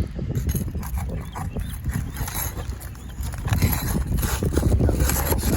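Steel flat bar scraping and knocking under architectural asphalt shingles while prying around to find a nail, with a low rumble of wind on the microphone.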